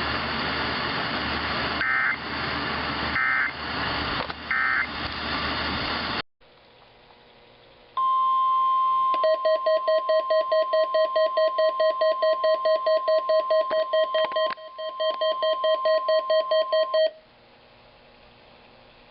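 NOAA Weather Radio through heavy static, ending with three short data bursts: the SAME end-of-message tones. After a cut, the 1050 Hz warning alarm tone of a weekly test sounds for about nine seconds while a weather radio receiver beeps its alert, about three beeps a second, and then both stop.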